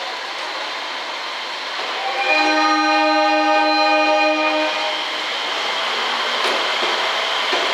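KiHa 47 diesel railcar's horn sounding one long, steady departure blast of about two and a half seconds, heard from inside the train over steady background train noise.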